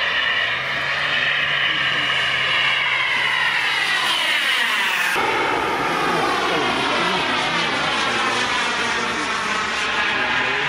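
KingTech K80 turbine of a Fly Eagle Jets Rafale RC model jet, whining in flight. Its pitch falls steadily as the jet flies past, the sound breaks off abruptly about halfway through, then the whine resumes and slowly falls again.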